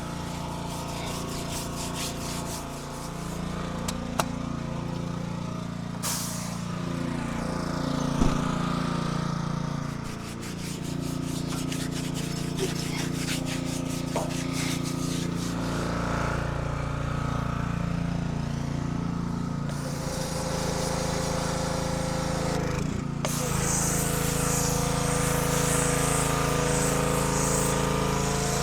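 Small gas engine of a pressure washer running steadily, with the hiss of its water spray over the last few seconds.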